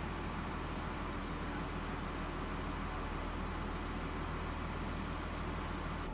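MRAP armoured vehicle's engine idling with a steady low hum.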